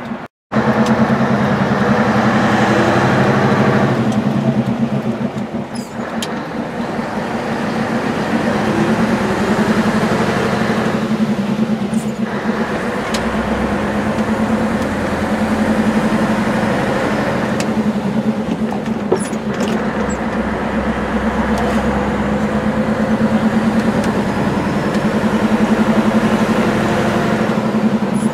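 Scania R144L 460's V8 diesel engine pulling steadily on the road, heard from inside the cab as a constant low drone. The note eases off briefly a few times.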